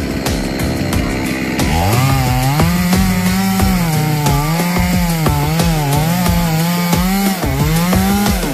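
Two-stroke chainsaw cutting melaleuca wood. The engine speed sags low in the first second and a half, revs back up about two seconds in, then rises and falls repeatedly as the chain loads in the cut.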